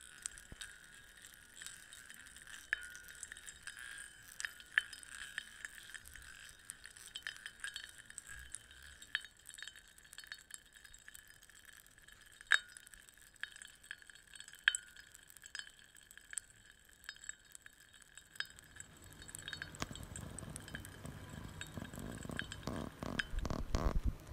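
Abstract electronic soundtrack: a steady high tone with scattered glassy clicks and tinkles. About eighteen seconds in, a low rumbling, crackling layer builds underneath and grows louder.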